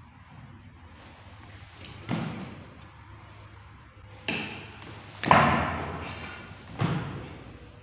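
Four sudden bangs, each dying away over about half a second to a second. The third, about five seconds in, is the loudest.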